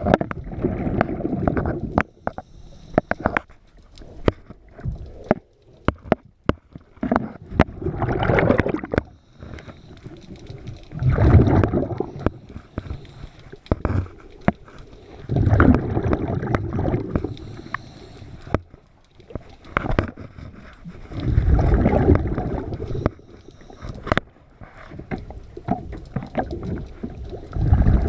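A scuba diver's exhaled bubbles rumbling and gurgling out of the regulator every few seconds, heard underwater. Short sharp clicks and knocks come between the breaths.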